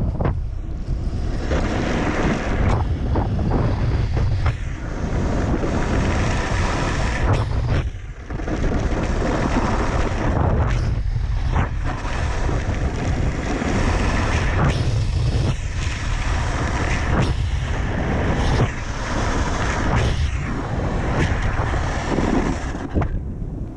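Wind buffeting a GoPro action camera's microphone while moving across open snow behind a kite, a dense rumbling rush with a few brief lulls.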